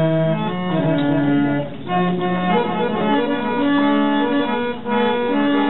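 Harmonium playing a slow melody of held notes that step from one pitch to the next, the accompanying music of a Karnataka leather shadow-puppet play.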